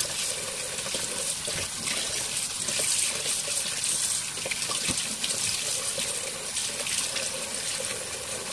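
Kitchen faucet running steadily into a stainless steel sink, the stream splashing over raw chicken wings being rinsed by hand in a small strainer bowl. A faint steady hum sits under the water.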